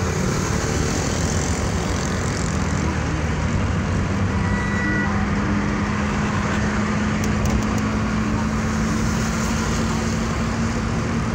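Steady road and engine noise of a moving car, heard from inside the cabin, with a low steady hum from about four seconds in.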